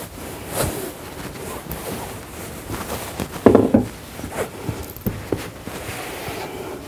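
Loose pillow stuffing being pushed by hand into the corners of a large fabric pillow cover: irregular rustling and scrunching of fabric and fibre, with soft knocks and one louder thump about three and a half seconds in.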